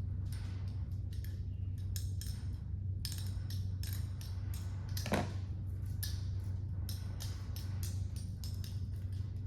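Balisong (butterfly knife) being flipped: quick, irregular metallic clicks and clacks as the handles swing around the blade and strike, several a second, over a steady low hum.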